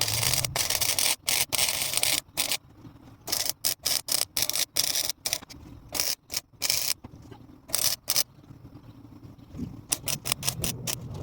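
Welder crackling in short stop-start bursts while laying weld to build up a rusted-out door hinge bolt hole, with a fast run of clicks near the end.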